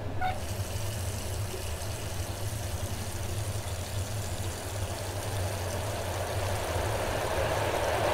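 Water running from a bathroom sink tap, a steady hiss that starts right at the beginning, over a low steady hum; the sound slowly grows louder near the end.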